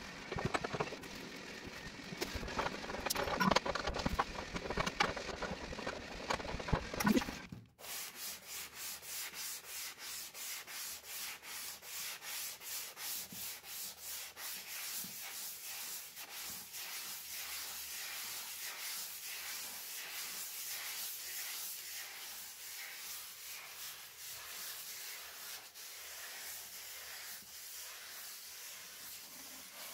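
Sandpaper worked back and forth by hand over a big leaf maple shelf slab, a steady scraping of about two strokes a second. For the first seven seconds or so there is a busier, uneven rubbing with knocks, which stops abruptly.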